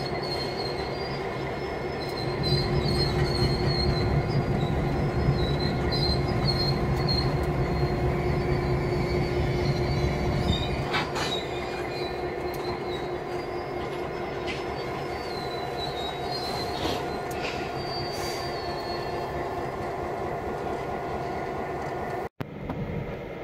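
EMD SD9 diesel locomotives moving slowly while switching tank cars, their engines running with a steady drone that grows louder about two seconds in and eases back after about ten seconds. Wheels give intermittent high-pitched flange squeal, with a few sharp clanks. The sound cuts out briefly near the end.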